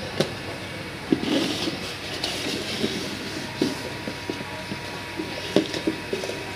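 Blue plastic bucket scraping and knocking over a stone floor as a Labrador puppy shoves it with its nose: irregular scrapes and clatters.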